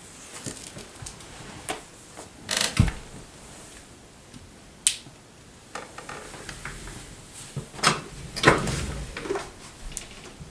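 Handling noises of a person moving about a bed and setting down a book: rustling with a scattering of knocks and sharp clicks, the loudest about two and a half seconds in, with a low thud, and again about eight and a half seconds in.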